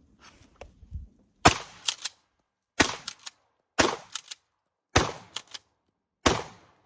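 Pump-action shotgun fired five times in quick succession, about one shot every second and a quarter, each shot followed by two quick clacks as the pump is worked back and forth. Faint handling clicks come before the first shot.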